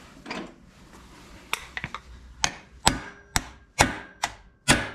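Hammer blows on a flywheel puller fitted to a Honda CR480R two-stroke's flywheel, about eight sharp metal knocks with a short ring, coming roughly two a second from about a second and a half in, to shock the flywheel loose from the crankshaft taper.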